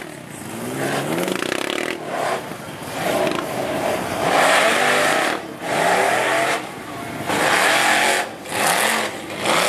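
Lifted Ford Super Duty mud truck's engine revving hard in repeated surges, pitch climbing and dropping about once a second, as its oversized tyres churn through a mud pit.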